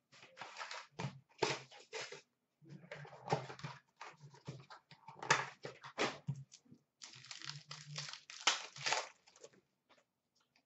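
Hockey card packs and their wrappers being torn open and handled: a run of short, irregular rustles, crinkles and rips, with cards slid and shuffled by hand.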